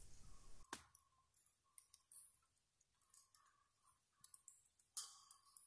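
Near silence, with a few faint scattered clicks, the clearest under a second in, and a faint thin tone that comes and goes.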